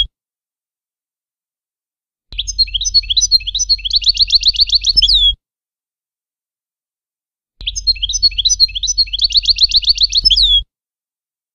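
European goldfinch song in the Levantine (Shami) style, a recorded tutor song looped for teaching young goldfinches. Two identical phrases, one about two seconds in and one just past halfway, each about three seconds long: a few scattered notes, then a fast run of repeated notes ending in a falling note.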